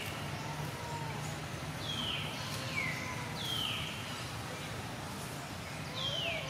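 Four short high calls, each falling in pitch: three in quick succession about two to four seconds in, and one more near the end, with faint lower gliding calls and a steady low hum behind them.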